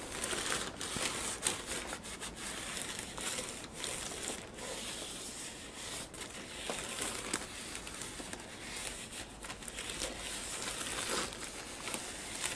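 Paper tissue rustling and crinkling in irregular scrapes as it wipes brake cleaner and protective oil off a new brake disc.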